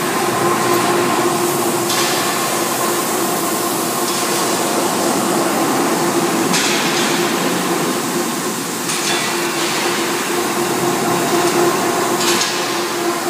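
Large industrial rotary drum dryer on a test run: the steel drum turning on its girth gear and support rollers, with biomass sawdust tumbling out of the discharge end, gives a loud, steady mechanical running noise with a constant hum. Brief bursts of hiss break in every few seconds.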